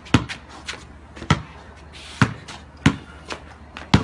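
A basketball being dribbled on concrete: five hard bounces at uneven intervals, with lighter knocks in between.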